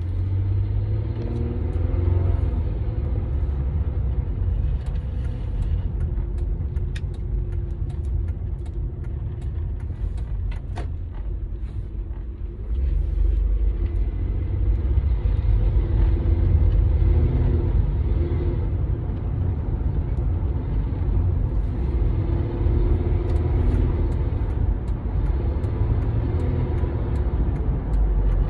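Ford Edge driving on the road: a steady low rumble of road and engine noise, with the engine note rising and falling. It gets louder about halfway through.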